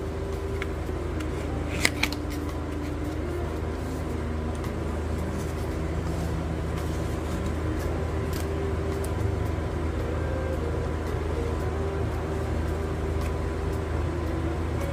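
Steady low hum under a faint melody of background music. Two sharp clicks about two seconds in come from photocard packaging being handled.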